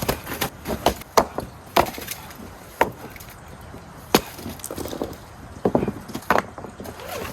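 A series of sharp knocks and cracks at uneven intervals, about nine in all, the loudest a little over a second, just under two seconds and about four seconds in.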